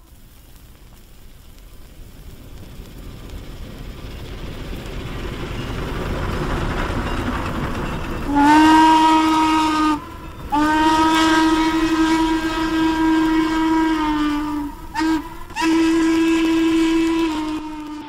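A Norfolk & Western steam locomotive drawing nearer, its running noise growing steadily louder for about eight seconds. Then its steam whistle sounds the grade-crossing signal: two long blasts, a short one, and a final long one.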